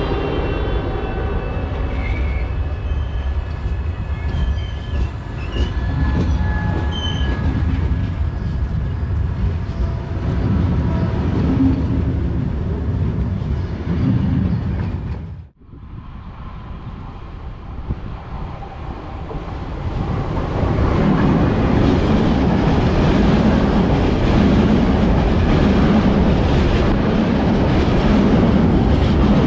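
Trains passing through a railway halt. A train rolls by with a whine that falls away in the first seconds. After a brief break about halfway, another train comes in, its wheel and rail noise growing louder near the end.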